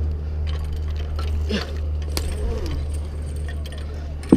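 Metal climbing and rigging hardware on a wood pole (snap hooks, carabiners, rope block) clicking and clinking now and then over a steady low rumble, with a sharper knock near the end.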